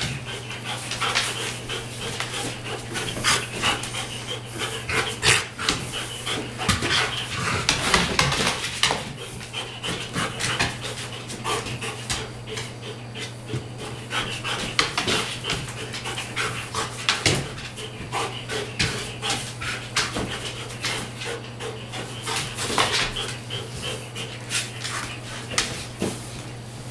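Large shaggy dog panting hard and fast during rough play-wrestling, with scuffling and bumping against a dog bed and floor.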